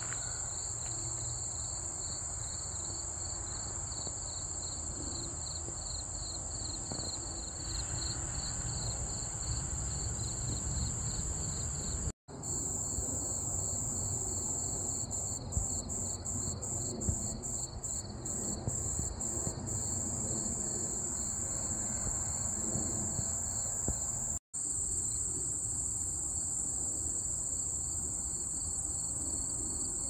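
Insect chorus in a meadow: a steady, very high-pitched continuous trill with a lower chirping pulse repeating a few times a second for the first dozen seconds. A low rumble sits underneath, and the sound cuts out for an instant twice, at about 12 and 24 seconds.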